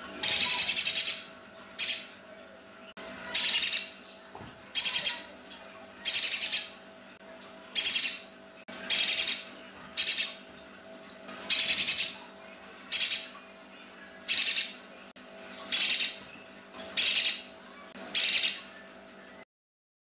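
Pijantung gunung spiderhunter calling: about fourteen short, harsh, rasping 'besetan' calls, sharp and closely spaced, repeated roughly once a second. A faint steady hum runs underneath.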